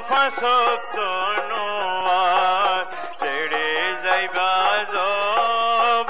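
Music: a melody of ornamented, wavering notes over a steady low drone.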